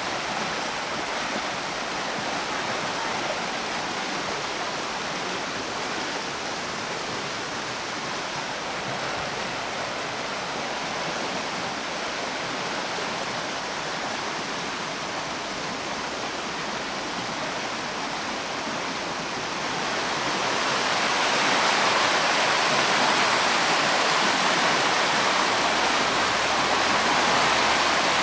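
Creek water rushing steadily, the stream running high; the rush grows louder about twenty seconds in.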